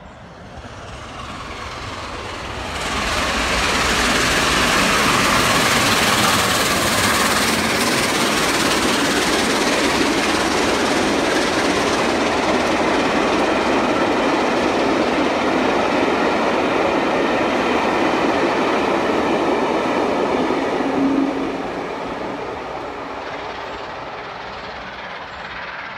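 The steam locomotive Tornado, a Peppercorn A1 Pacific, runs through the station non-stop with a long rake of coaches. A loud rush builds sharply about three seconds in as the engine passes, holds steady while the carriages go by, and fades from about twenty-one seconds as the train draws away.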